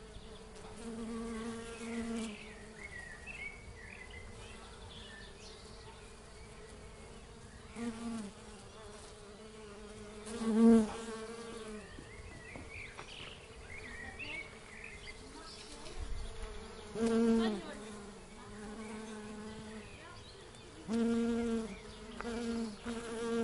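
Honey bees buzzing, a steady hum with single bees passing close every few seconds, each pass loud and bending briefly in pitch.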